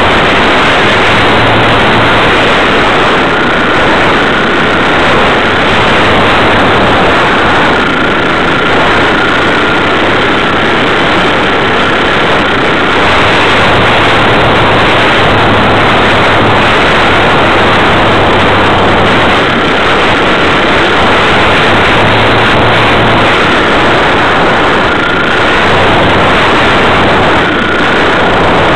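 Motor and propeller of a Wilga model aircraft running steadily in flight, heard up close from an onboard camera as a loud, even drone with a faint, slightly wavering high whine and rushing air noise.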